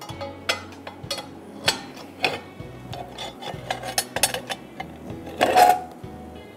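Clanks and scrapes of a cast-iron sizzler plate being gripped with a metal sizzler handle and shifted on a gas burner grate. The clanks come every second or so, and the loudest one, near the end, rings briefly. Faint background music runs underneath.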